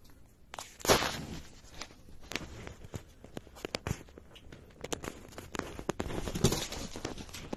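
A string of irregular crunches and clicks, as of footsteps and scuffing on loose, gravelly laterite soil. The loudest comes about a second in.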